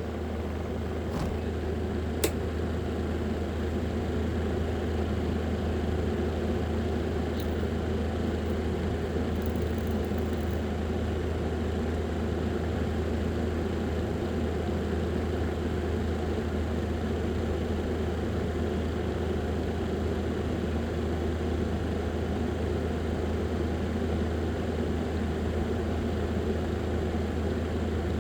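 Small electric fan motor running with a steady hum and whir, swelling over the first few seconds and then holding even. One sharp click about two seconds in.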